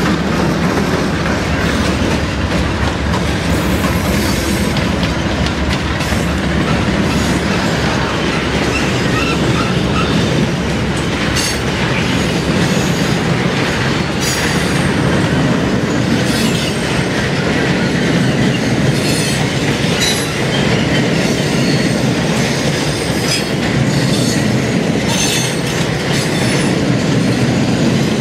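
Freight train rolling past close by: a steady rumble of steel wheels on rail, with clicking as the wheels run over rail joints.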